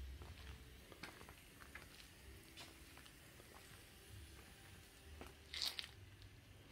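Near silence with faint footsteps and camera-handling clicks, and one brief louder rustle about five and a half seconds in.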